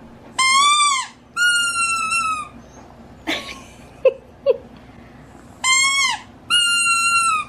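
Pumpkin-shaped squeaky dog toy squeezed by hand: two pairs of loud, high squeaks, each pair a short squeak followed by a longer, steady one, the second pair about five and a half seconds in.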